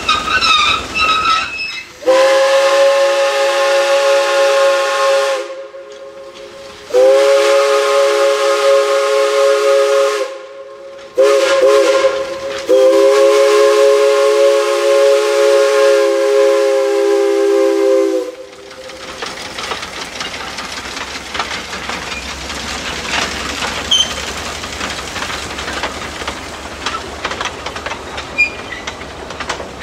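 Steam whistle of a replica Type A vertical-boiler Climax geared logging locomotive, blowing four blasts (long, long, short, long), the standard grade-crossing signal. About 18 seconds in it stops, and the small train is heard rolling past with a steady rumble and scattered clicks from the wheels on the rails.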